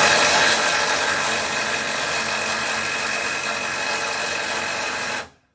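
Impact wrench hammering at a stubborn lift-kit bolt that may need a breaker bar, loud and steady for about five seconds, then cutting off suddenly.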